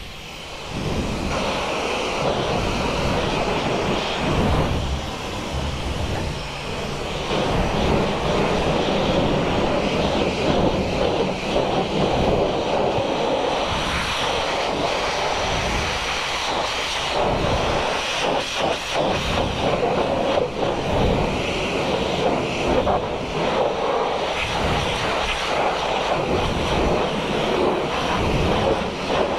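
High-pressure car-wash lance spraying water onto a motorcycle: a steady hiss of spray with small dips in level.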